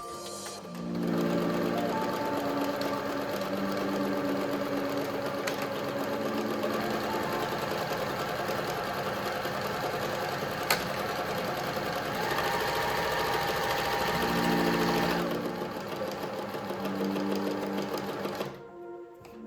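Pfaff Tipmatic 6110 sewing machine running steadily at speed, stitching. It starts about a second in and eases off to a quieter run about three-quarters through.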